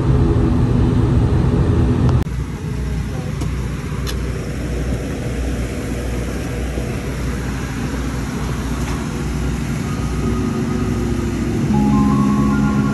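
Cabin noise of an ATR 42-600 turboprop airliner taxiing after landing. It is a steady engine and propeller hum for about two seconds, then drops abruptly to a quieter, even rumble. Music fades in near the end.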